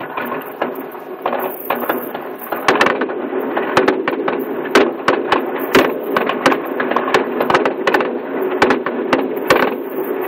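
Fireworks display: shells bursting in a rapid run of sharp bangs and cracks, growing denser and louder a couple of seconds in.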